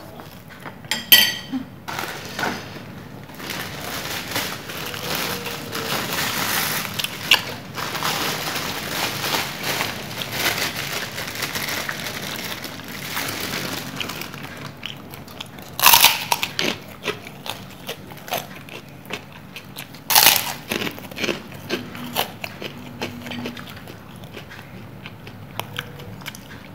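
Close-up crunching and crackling from eating crisp snacks: fried cireng and a large puffy white kerupuk cracker being bitten and broken. A dense crackle runs for several seconds early on, with sharp loud crunches about a second in, around 7 s, and twice more near 16 and 20 s.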